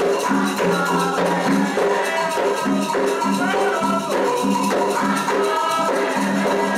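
Candomblé toque for Logun Edé: atabaque hand drums played in a steady, driving rhythm with a shaken rattle, and voices singing over them.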